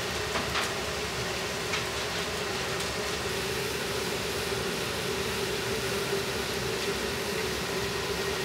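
Steady roar of a Chinese restaurant's wok range, the gas burner and extraction running together with a steady hum. A few light metal clinks from the wok and ladle come in the first few seconds.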